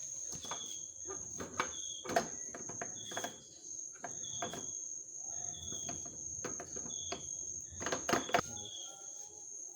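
Metal engine parts clicking and knocking as timing-chain parts are fitted by hand, a few sharp knocks standing out. Behind them a cricket chirps about once a second over a steady high whine.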